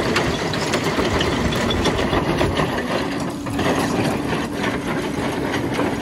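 Hyundai crawler excavator's diesel engine running while its screener bucket works, with constant clattering of stones and soil shaken inside the bucket as the soil pours out. A steady droning tone joins about halfway through.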